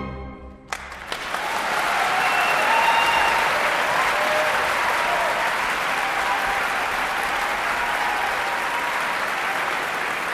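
Concert audience applauding right after the last note of the violin and orchestra dies away. The applause breaks out within the first second, swells, then holds steady, with a few voices calling out in it.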